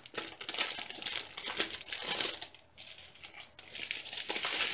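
Small clear plastic bags of diamond-painting drills crinkling as they are handled, with a quieter pause about two and a half seconds in.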